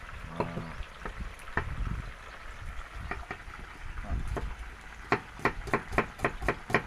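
Kitchen knife chopping red onions on a wooden cutting board: scattered strokes at first, then a quick even run of about four or five cuts a second in the last couple of seconds. Under it, chicken frying in a pan of oil sizzles steadily.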